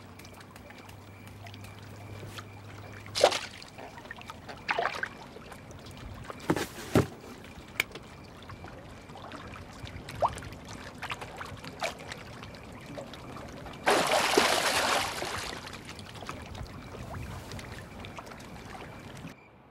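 Water sounds: trickling water with several short sharp splashes or drops, and a longer, louder splash about fourteen seconds in.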